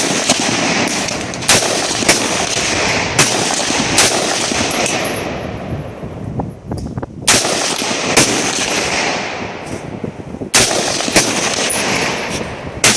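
Rifle shots at a shooting range, AR-15 fire among them: about ten single shots at uneven spacing, mostly half a second to a second and a half apart, each with a long echoing tail, and a lull of about three seconds in the middle.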